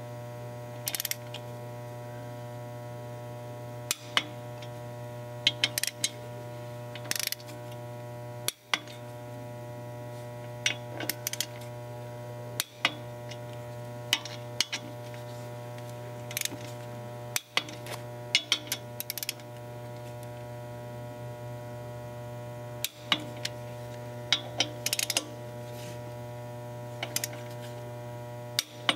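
Torque wrench ratcheting and clicking in short bursts every few seconds as the clutch pressure plate bolts are tightened to 19 pound-feet, over a steady electrical mains hum.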